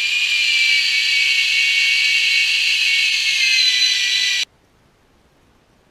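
Electric drill running at high speed to drill a hole: a steady high whine that rises slightly in pitch at first, then cuts off suddenly about four and a half seconds in.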